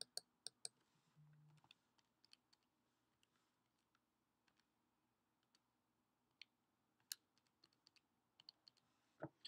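Faint, scattered key clicks over near silence: a quick run of several presses at the start, a few isolated ones, then another cluster near the end, as when a calculation is keyed in.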